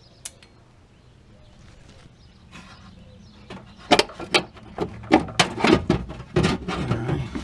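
Irregular clicks and knocks of parts being handled and worked loose in a car's wheel well, coming thick and fast from about halfway through after a single click near the start.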